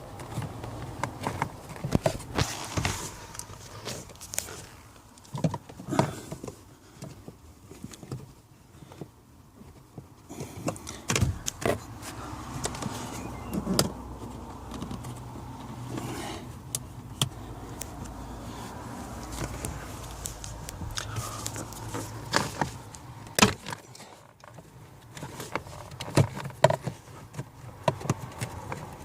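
Irregular clicks, knocks and rattles of hands and tools working on the hard plastic of a car's heater blower case, with a few sharper knocks among them.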